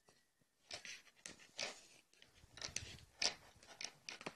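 Faint, irregular rustling and scraping of loofah yarn being handled, as a strand is threaded through the yarn wound around a lid.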